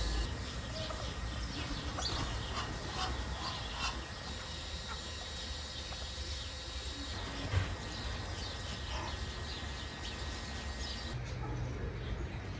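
Scattered short chirps and calls of birds in an aviary, over a low rumble, with one sharp knock about seven and a half seconds in.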